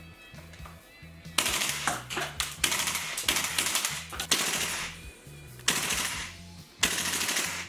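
SCAR-L gas blowback airsoft rifle firing on full auto: several rapid bursts of shots, each about a second long, starting about a second and a half in. Background music runs underneath.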